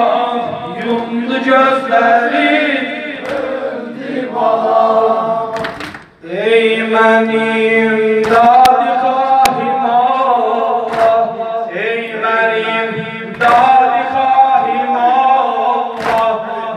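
A male eulogist chanting a Muharram mourning lament into a microphone over a loudspeaker, with the mourners' voices joining in chorus and the slaps of their chest-beating (sineh-zani). The singing breaks off briefly about six seconds in.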